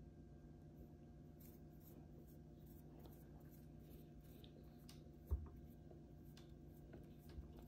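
Near silence over a steady low room hum, with faint scratchy ticks from hands handling nylon fishing line and a single thump about five seconds in.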